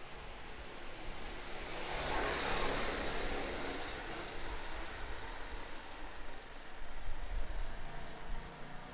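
A motor vehicle passing along the street: its noise swells for a couple of seconds, peaks, then fades, over a steady low outdoor rumble.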